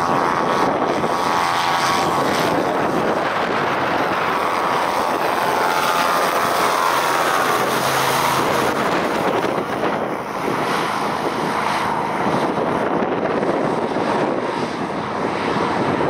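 Christy 463 PC hovercraft running over water, its engines and ducted thrust propeller droning, with the pitch shifting as it passes close about halfway through. Strong gusty wind buffets the microphone.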